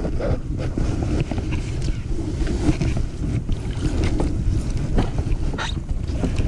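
Wind buffeting the microphone in a steady low rumble, with scattered light clicks and knocks over it, the sharpest about five and a half seconds in.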